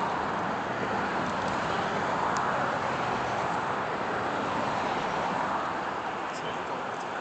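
Steady road traffic noise: the even hiss of tyres passing on a nearby road, swelling and fading slightly.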